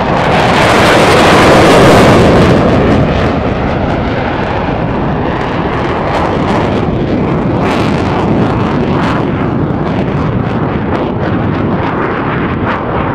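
Fighter jet passing overhead in full afterburner: a loud roar that peaks about two seconds in, then a long rumbling, crackling roar as the jet pulls away.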